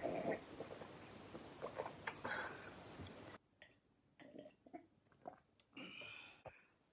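Quiet room with a few faint, soft clicks and small noises of mouth or handling; the faint background hiss cuts out suddenly a little past halfway.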